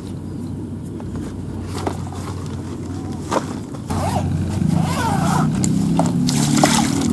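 Zipper of a fishing-rod bag being opened, with scraping and handling of the bag, over a steady low hum.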